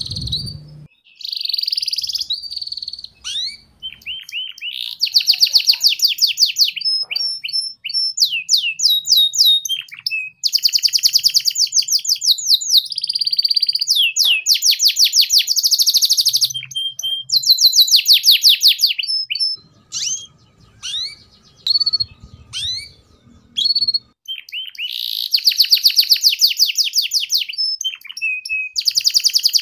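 Domestic canary singing: fast, high trills of rapidly repeated notes in phrases of a second or two, broken up by sweeping chirps and short pauses.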